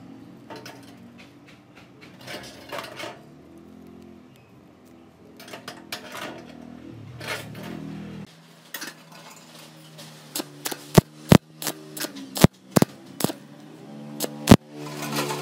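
Thin expanded-steel mesh pieces clinking and scraping against each other as they are handled and fitted together, with a run of loud, sharp clicks in the last five seconds.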